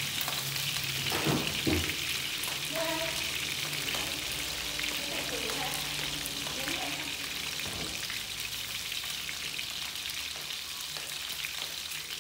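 Pork rib pieces sizzling steadily as they fry in oil in a frying pan. Two short knocks about a second and a half in, from being stirred.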